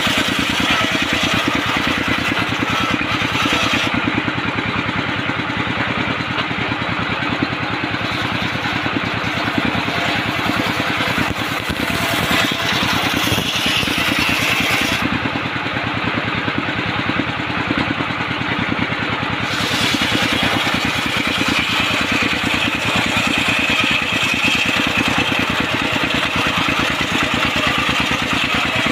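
Engine-driven bench circular saw running steadily while its blade rips dense jackfruit wood into planks: the rapid putter of the engine under a higher whine from the blade biting through the timber.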